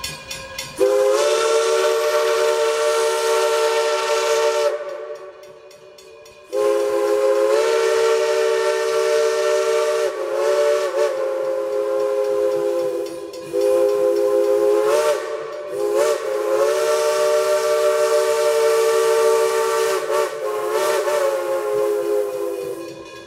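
Steam locomotive No. 98, a 4-4-0, blowing its chime whistle, a chord of several notes, in a series of long blasts with brief breaks, the longest about six seconds, for a road grade crossing.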